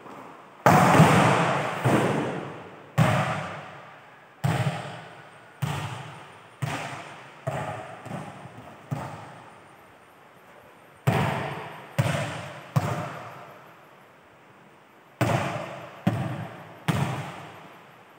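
Volleyball being struck and bouncing off the floor and wall of a large hall: a string of sharp smacks about a second apart, each echoing through the hall. There are nine in a run, then after short pauses two more runs of three.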